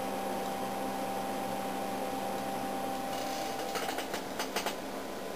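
Steady hum of running bench test equipment with a high whine that stops about four seconds in, followed by a quick run of sharp clicks.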